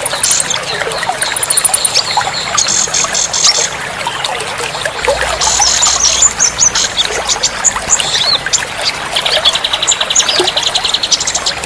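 Several songbirds chirping and singing fast high trills, each run lasting a second or so, over steadily trickling water: a bird-therapy recording played to prompt caged birds that have gone quiet to sing.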